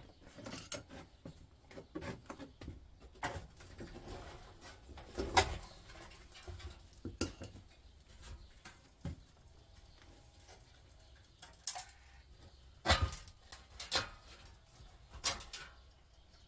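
Irregular metal knocks and clanks as a wedge pries the steel back panel off an electric hob, a few with brief ringing; the loudest strike comes about five seconds in, and a cluster of clanks comes near the end.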